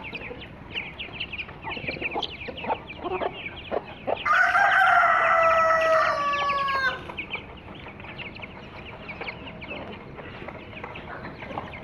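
An Aseel rooster crows once, one call of about three seconds starting about four seconds in and dropping in pitch as it ends. Throughout, young chicks peep in quick high chirps, with quieter clucking from the hens.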